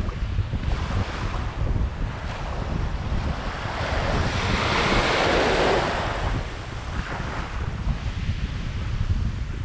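Small waves lapping and washing up on a sandy shoreline, with one wave swelling and breaking about four to six seconds in, the loudest part. Wind buffets the microphone throughout as a low rumble.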